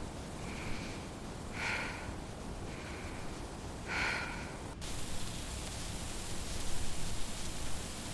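Close, heavy breathing: a loud, noisy breath about every two seconds with a fainter one between. About halfway through it cuts off abruptly to a steady hiss.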